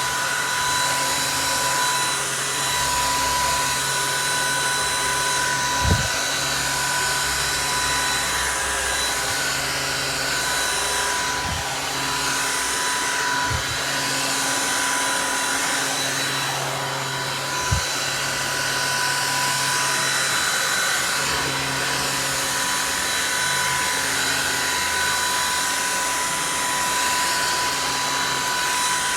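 Oraimo cordless stick vacuum's brushless motor running steadily: a high whine over rushing airflow, with a few brief knocks.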